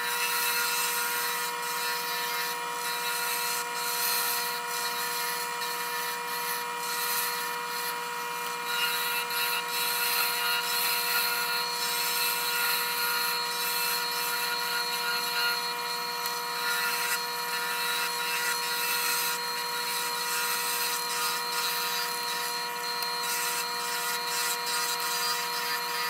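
Wood lathe running while a skew chisel cuts a spinning black locust pen blank: a steady machine hum with continuous rough scraping from the cut. The wood is hard and comes off in small shavings.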